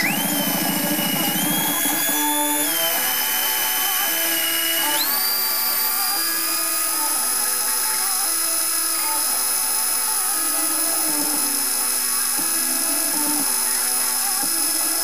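A 1 hp corded electric drill driving a homemade wood lathe, its motor whining at a high, steady pitch that dips at the start and steps up about five seconds in as its speed changes. From about two seconds in, music with a plucked melody plays along with it.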